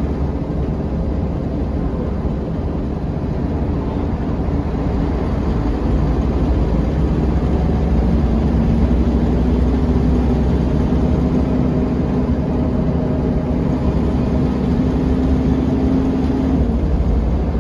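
Rear-mounted six-cylinder diesel engine of a 1998 Volvo B10BLE city bus, heard from the rear seats inside the cabin while the bus drives. About six seconds in it gets louder under load, with a drone that slowly rises in pitch and falls away shortly before the end.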